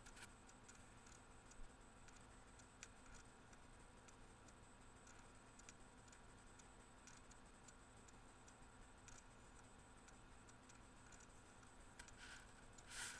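Near silence: room tone with a low steady hum and faint, irregular clicks, and a soft rustle near the end.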